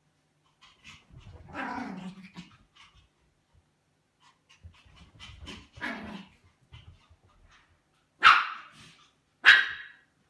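Pomeranians playing, giving two softer vocal sounds and then two sharp, loud barks near the end, a little over a second apart.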